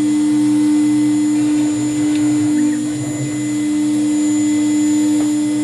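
CNC router's VFD-driven spindle running at speed as a V-bit cuts into wood, a steady high whine with no break.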